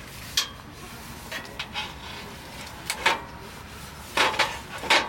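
A handful of short knocks and scrapes, about six in all, the loudest near the middle and twice near the end.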